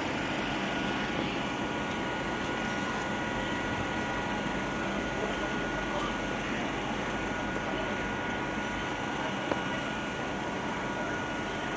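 Steady mechanical hum with a few faint, steady high-pitched whine tones, of the kind a standing electric local train's blowers make. A single short click about nine and a half seconds in.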